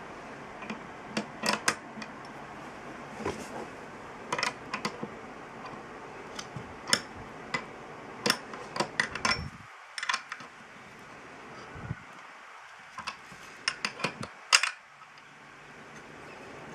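Irregular sharp metallic clicks and taps from a 1/2-inch open-end wrench fitting onto and turning the mount screw of a red dot sight's mount on an AR-15's rail. The clicks come in clusters, with a sharper knock near the end.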